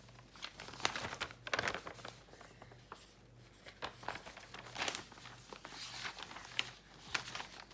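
Sheets of paper rustling and crinkling as they are handled and turned, in a run of short, irregular crackles.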